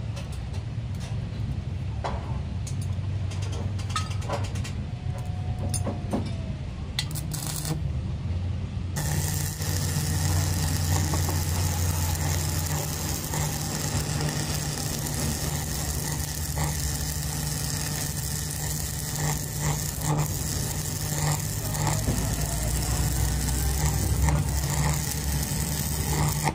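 Electric arc welding: a steady low electrical hum, then about nine seconds in the arc strikes and crackles and sizzles steadily with small pops.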